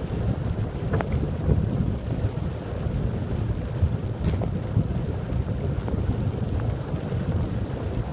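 Wind buffeting the microphone and tyre rumble on asphalt from a recumbent bicycle riding at about 30 km/h: a steady low rumbling rush, with a couple of faint ticks.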